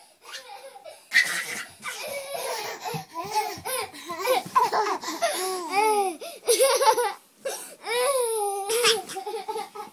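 Baby laughing in repeated high-pitched giggles and belly laughs, starting about a second in and building to long bouts of laughter in the middle.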